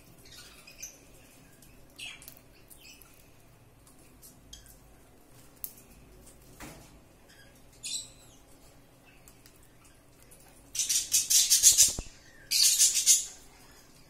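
Cockatiel nibbling grains off a stalk of paddy rice, with scattered small crackling clicks from the beak husking the grains. Near the end come two loud, rapid rattling bursts of about a second each, the loudest sound here.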